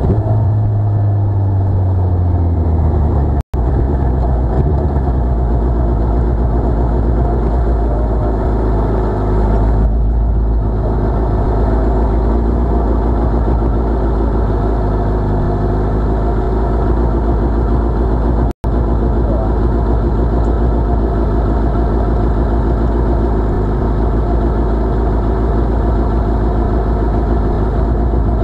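Suzuki Hayabusa inline-four engine winding down as the motorcycle slows to a stop, its revs falling over the first few seconds, then idling steadily. The sound cuts out for an instant twice.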